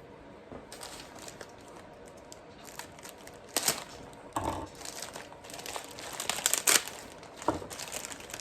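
Packaging of a new tool set being opened by hand: crinkling and tearing in irregular bursts, loudest about three and a half seconds in and again around six to seven seconds.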